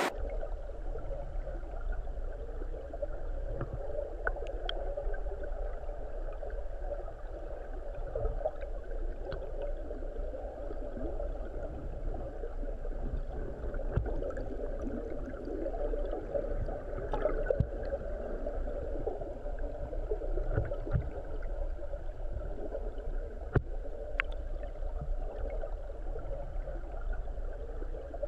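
River water heard underwater by a submerged camera: a steady, muffled rumble and gurgle of the current, with scattered small clicks.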